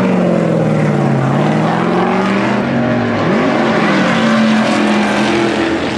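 Stock-car V8 engines running loud on the track, several at once, their pitch sliding up and down as the cars pass, with one rising sweep about three seconds in.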